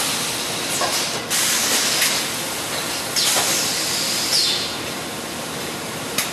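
Hot forging die of an aluminium wheel forging press hissing steadily as steam and flame rise off it, with several sudden louder spurts and a sharp crack near the end.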